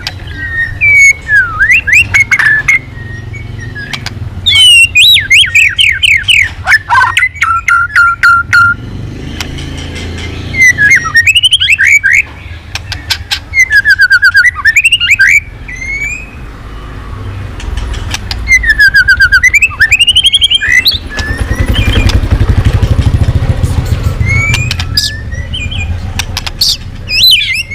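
White-rumped shama singing loud, varied phrases: rich whistles that sweep up and down, mixed with fast clicking rattles, in bursts with short pauses between them.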